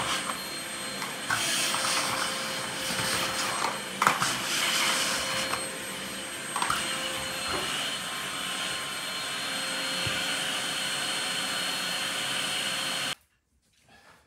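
Canister vacuum cleaner running steadily on a tiled floor, with a few sharp knocks along the way. The sound cuts off suddenly near the end.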